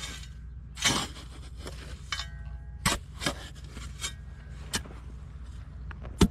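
Shovel digging into sandy, stony soil. A crunching scrape about a second in, then several sharp scrapes and knocks of the blade and falling clods, the loudest just before the end.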